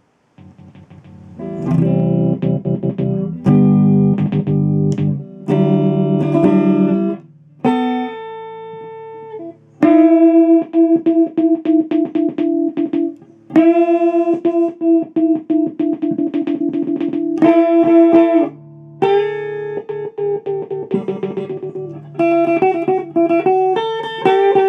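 Electric guitar, a Gibson Les Paul Studio, played through an amplifier, its held notes and chords cut on and off in rapid stutters by a kill pot switch. The switching may bring a slight crackle at each click, which the player suspects is a grounding issue.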